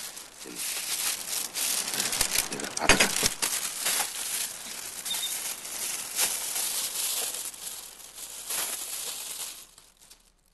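Thin plastic carrier bag rustling and crinkling as it is handled and opened, with short sharp crackles throughout; it stops about ten seconds in.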